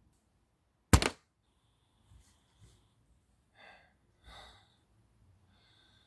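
A single sharp knock about a second in, followed by a few faint brief rustles and breaths.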